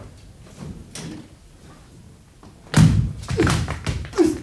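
A staged kung fu fight: after a quiet start, a quick run of thuds and slaps from blows and stamping feet begins a little under three seconds in, with short falling shouts between the hits.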